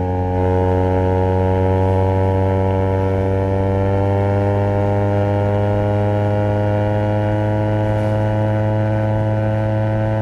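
Honda CBR250RR parallel-twin engine through a Project 79 slip-on exhaust, running at steady revs while cruising, its pitch creeping slightly higher.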